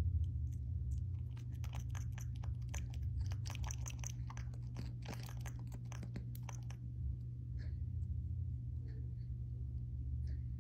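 A young monkey chewing and nibbling on a person's finger: wet, crunchy mouth clicks come thick and fast for most of the first seven seconds, then thin out to scattered clicks with a few short, faint high notes. A steady low hum runs underneath.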